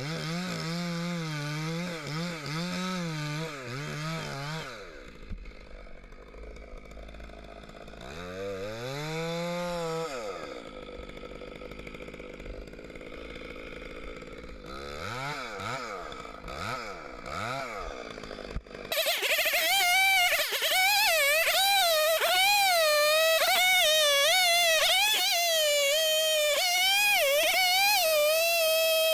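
Chainsaw engine running under load, with its pitch wavering, then revving up and down in several bursts as it cuts. About two-thirds of the way through, a louder, high-pitched wavering whine abruptly takes over.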